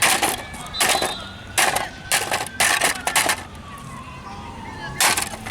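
Hammer blows smashing an old speaker box: about seven sharp strikes at uneven intervals, with a gap of over a second before the last one.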